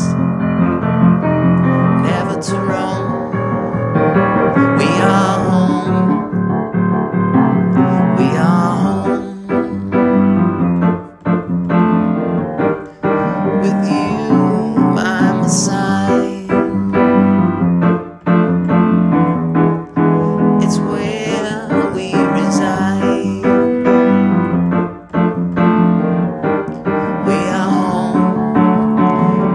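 A song with keyboard accompaniment and a singing voice.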